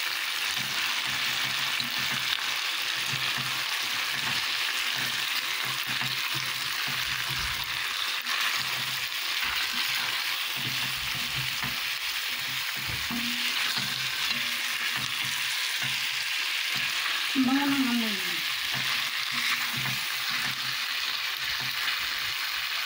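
Chicken pieces with tomato and spices sizzling in a pot, stirred with a silicone spatula: a steady frying hiss. A brief falling tone comes about three-quarters through.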